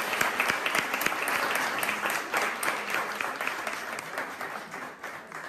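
Audience applause with many hands clapping, thinning and fading toward the end.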